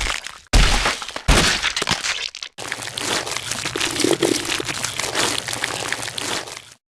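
Gore sound effects of cracking and crunching, as of bones breaking: three sharp cracks in the first second and a half, then a long stretch of dense crackling and crunching that stops abruptly near the end.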